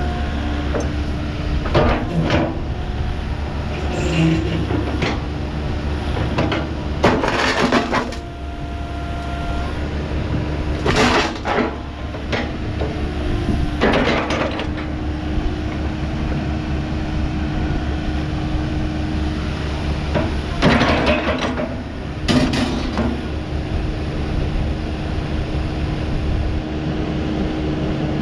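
Diesel engine of a 2013 Volvo ECR88D midi excavator running steadily, with about six short, loud bursts of noise over it as the machine works.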